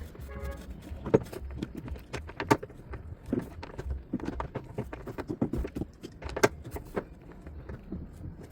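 Irregular clicks and knocks of a hand tool working at the screws that hold a twin-tub washing machine's transmission, with a few sharper clacks among them.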